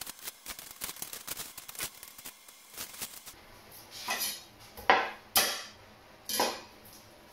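Dry onion skin being peeled by hand, a run of small papery crackles. Then a large knife cuts through the onion on a wooden chopping board, four crunchy cuts in the second half.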